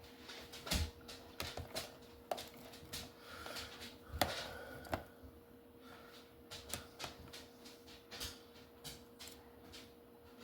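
Irregular clicks and knocks from food and utensils being handled while shish kebabs are put together, the two sharpest knocks about one and four seconds in. A faint steady hum runs underneath.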